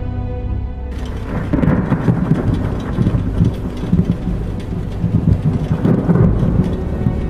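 Thunder rumbling with rain falling. The rumble starts about a second in and swells and fades in waves. Background music plays underneath.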